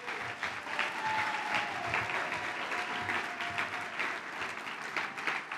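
Audience applauding: many hands clapping steadily, thinning out near the end.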